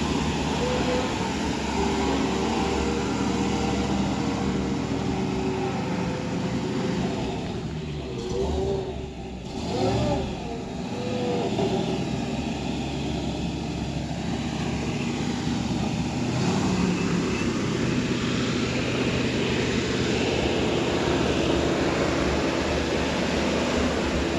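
Gasoline engine of an old Ford fire truck running steadily, with a short dip in level about eight to ten seconds in.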